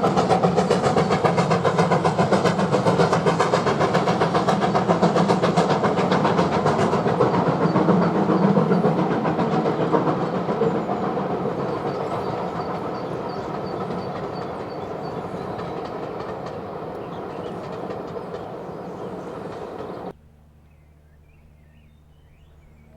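BR Standard 4MT 4-6-0 steam locomotive working hard, its exhaust beating fast and even, with train running noise, gradually fading as it draws away. About twenty seconds in the sound cuts off abruptly, leaving a quiet stretch with faint music starting near the end.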